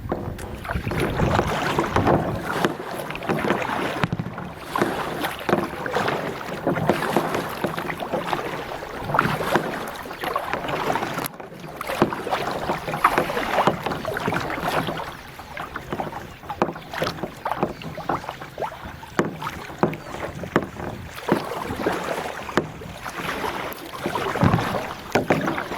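Kayak paddle strokes, the blades dipping and splashing in the water one stroke after another, with water trickling in between.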